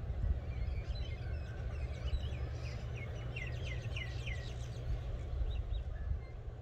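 Wild birds calling, with a quick run of short repeated chirps about halfway through, over a constant low rumble.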